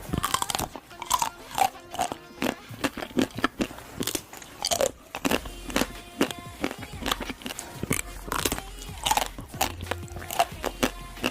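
Close-miked crunchy biting and chewing of food: a rapid, irregular run of sharp crunches, with faint music underneath.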